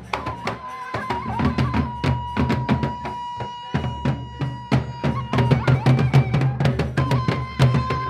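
Gendang beleq ensemble playing: large double-headed Sasak barrel drums struck in a fast, dense rhythm with deep thumps, and a long held note sounding above the drumming. The music grows louder over the first few seconds.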